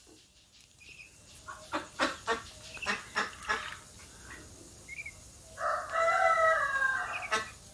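Young Muscovy ducks calling while being hand-fed: a run of short clucking calls, a brief chirp, then one longer call lasting about a second and a half near the end.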